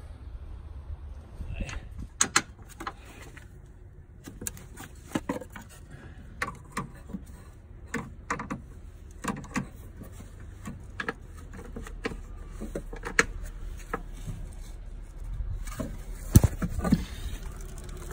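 Scattered clicks, taps and knocks of a gloved hand and tools working among metal and plastic parts in a car's engine bay, over a low rumble; a sharp knock about sixteen seconds in is the loudest.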